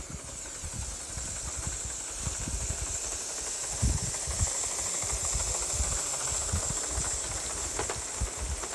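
Steady steam hiss from a live-steam O gauge model locomotive running past, growing louder toward the middle as it comes close, with low thumps underneath.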